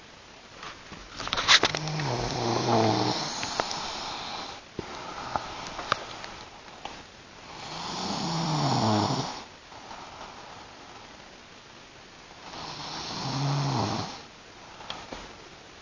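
A woman snoring loudly in her sleep: three long, rough snores about five seconds apart, each lasting two to three seconds, the first starting with a sharp click.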